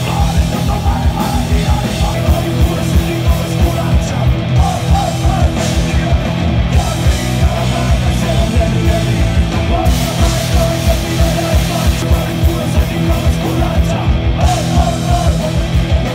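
Punk rock band playing live at full volume: electric guitars, bass guitar and drums, with a steady pounding beat.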